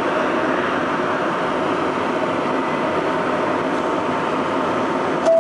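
Steady rushing hum of an R62A subway train standing at an underground station platform. Right at the end a clear single chime tone starts, the first note of the doors-closing chime.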